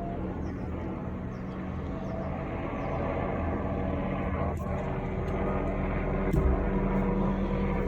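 Police helicopter circling overhead: a steady engine and rotor drone that grows slowly louder, with a couple of faint clicks.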